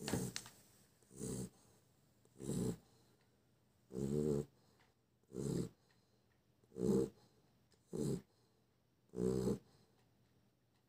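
Chow Chow dog snoring in its sleep: eight snores in a row, about one every second and a half, with quiet breaths between them.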